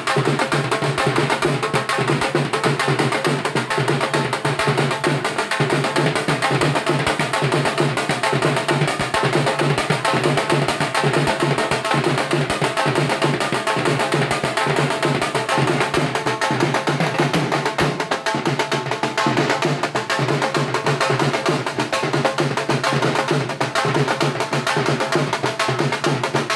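Two dhol drums beaten with sticks, playing a fast, continuous dance rhythm of dense, rapid strokes.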